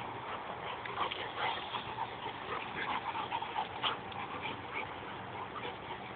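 A St. Bernard and a pit bull play-fighting, making short, irregular dog noises that are busiest in the first four seconds.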